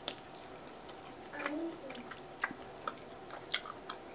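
Chewing a crispy breaded chicken wing close to the microphone: irregular small crunches and mouth clicks, about two a second, with a brief hum about a second and a half in.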